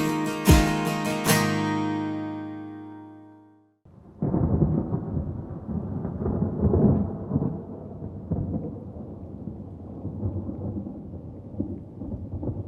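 An acoustic guitar piece ends on a strummed chord that rings out and fades away over a few seconds. About four seconds in, a low, uneven rumble of storm noise takes over, swelling and easing like distant thunder.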